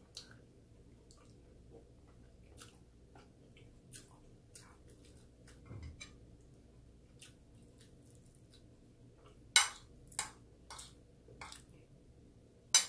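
Close-miked eating sounds: faint chewing with scattered small wet clicks, and two louder sharp clinks of cutlery on the plate, about nine and a half seconds in and again at the very end.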